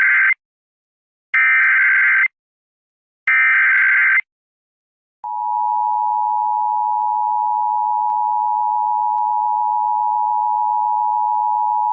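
Emergency Alert System SAME header: three bursts of rapid warbling data tones, each about a second long with a second's gap between them. From about five seconds in comes a long steady single-pitched alert tone. Together they announce an incoming flash flood warning broadcast.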